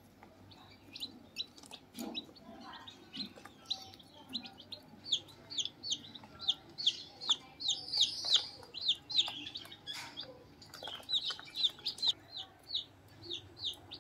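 A brood of Kaveri chicks peeping: many short, high cheeps overlapping in a continuous chorus, thickest and loudest a little past the middle.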